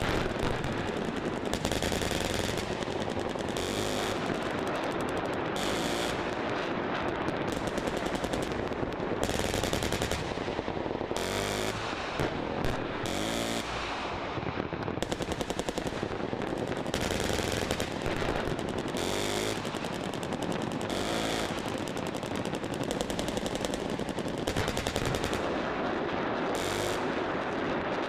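Massed machine-gun fire from many guns at once: an unbroken rattle of rapid shots, with louder bursts every second or two.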